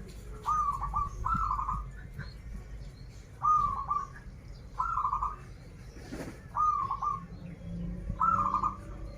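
Zebra dove (perkutut) cooing: a run of short rolling coos, each a rising-and-falling note breaking into a trill, repeated every second or two. A single sharp click sounds about six seconds in, over a steady low hum.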